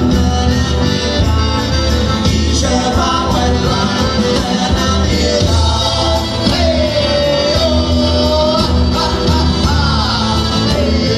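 Live folk band playing a southern Italian folk song: accordion, guitars and a drum kit, with a man singing.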